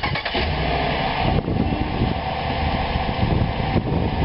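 SUV engine running at idle as the vehicle creeps slowly forward on grass to put its front tyre onto a drive-on antenna mast base.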